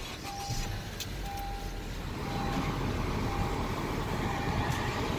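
A 2015 Honda Accord's 2.4-litre four-cylinder engine starting with a click and running at idle, heard from inside the cabin. A dashboard warning chime beeps about once a second over it.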